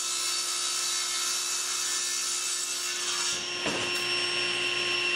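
SawStop table saw ripping a laminated wooden leg blank, pushed through the blade with a push stick: a steady motor-and-blade whine under the cut. About three and a half seconds in, the sound turns to a broader rush as the piece clears the blade.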